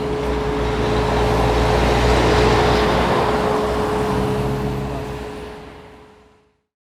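Road-building machinery running: a low engine hum under broad noise with a steady whine, fading out about five to six seconds in.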